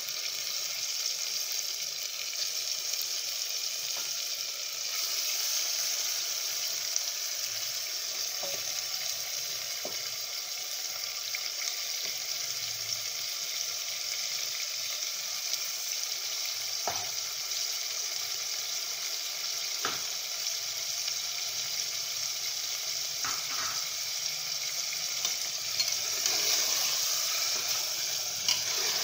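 Marinated mutton sizzling steadily as it fries in hot oil and masala paste in a pan. A few short clicks of a spoon against the pan are heard now and then.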